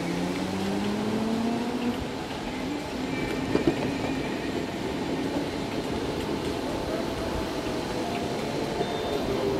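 Electric skateboards and scooters riding in a group: a motor whine rises in pitch over the first two seconds as the ride speeds up, then gives way to steady wheel and wind noise.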